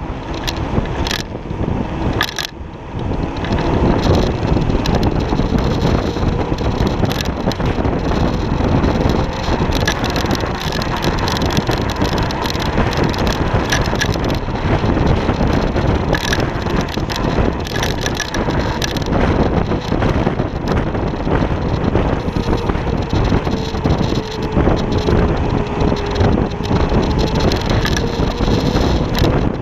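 Kaabo Wolf King GT electric scooter riding on asphalt: steady wind and road rumble at the deck-mounted action camera, with a faint electric-motor whine that drifts up and down with speed. It gets louder about three seconds in as the scooter gets going.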